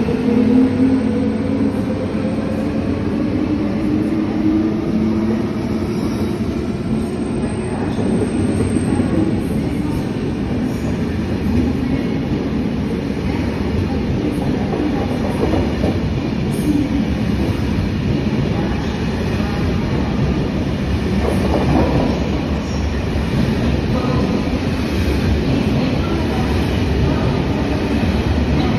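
Eurostar high-speed train running past along a station platform: a motor whine falls in pitch over the first few seconds, then steady wheel-and-rail rumble with a faint clickety-clack runs on as the carriages go by.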